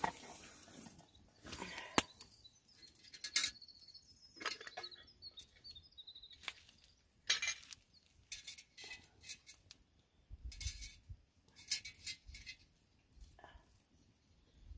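A camp cooking pot of just-boiled water being handled on rocky ground: scattered light knocks, clinks and scrapes.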